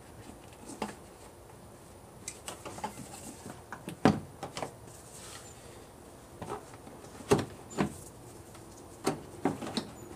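Plastic clunks and knocks from a BMW 328i's air box housing being worked loose and lifted in the engine bay: a dozen or so separate sharp knocks at irregular intervals, the loudest about four seconds in and again past seven seconds.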